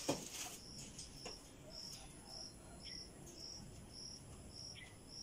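Faint insect chirping: short high-pitched chirps at one steady pitch, evenly spaced about twice a second, with a soft knock right at the start.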